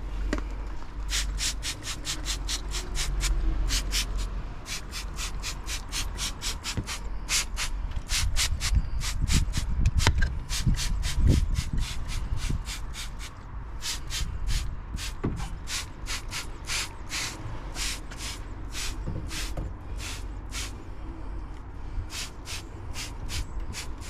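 Hand-pumped spray bottle of engine degreaser squirted over and over into a car's engine bay: short hissing squirts, about three a second, with a few brief pauses.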